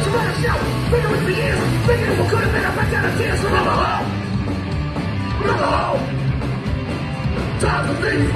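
Live rock band playing: distorted electric guitars, bass guitar and drums, with a vocalist yelling into the microphone in several shouted phrases.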